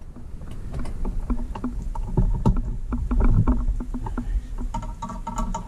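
Knocks, clicks and rattles of a Schwinn pet bike trailer's frame and hitch being handled while it is hooked to a bicycle. A short high-pitched whine comes near the end.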